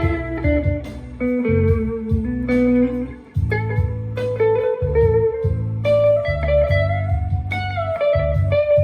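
Harley Benton SC-DLX electric guitar played through a Belcat Blues Drive overdrive pedal: bluesy lead lines with string bends, over a low repeating bass part.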